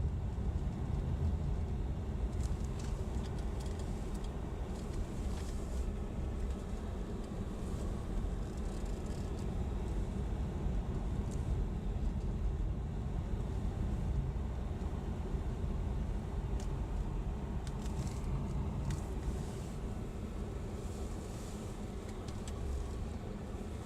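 Car driving on snowy roads: a steady low rumble of engine and tyres, with a few faint ticks here and there.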